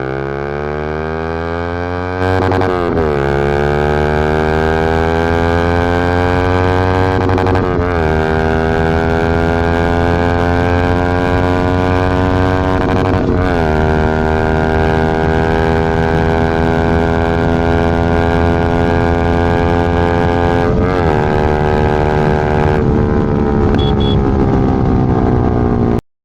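Yamaha MT-15's single-cylinder engine through an aftermarket full-system exhaust, accelerating through the gears. The pitch climbs steadily and drops at each of four upshifts, with longer pulls in the higher gears, then cuts off suddenly near the end.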